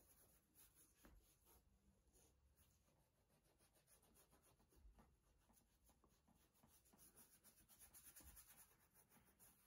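Faint, rapid scratching of a toothbrush's bristles scrubbing polish into a leather boot's welt. It grows a little louder about eight seconds in.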